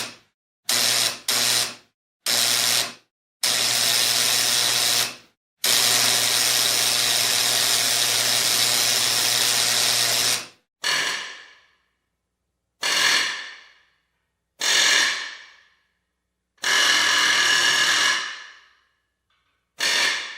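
Electric welding and electric drill sounds: a run of loud bursts. The first bursts, including one long run of about five seconds, cut in and out sharply over a low hum. From about halfway through come shorter bursts, each fading away over about a second.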